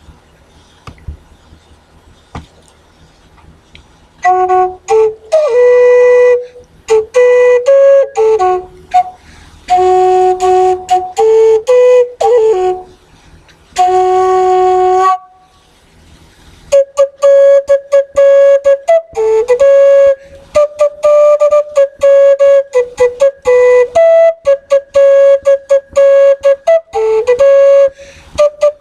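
A flute playing a slow melody of held notes, starting about four seconds in, with a short break near the middle before longer sustained notes continue.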